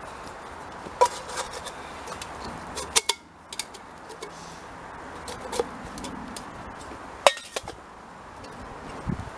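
Camping kit being handled and packed by hand: scattered sharp clicks and clinks of gear being picked up and set down, a few with a short metallic ring, over a steady background hiss.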